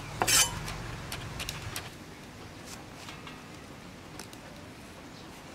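A cleaver shaving the skin off a green papaya on a wooden chopping block: a scraping stroke just after the start, then a few faint light scrapes and taps. A low hum underneath fades out after about two seconds.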